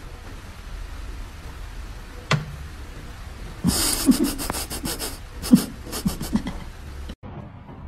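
Breathy panting and snorting bursts in quick clusters from about halfway in, over a steady low hum, with a single click shortly before.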